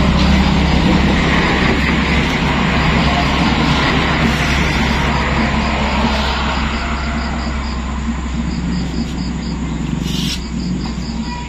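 Steady low hum with a rushing noise that fades after about seven seconds. Crickets chirp in quick, regular pulses from about halfway.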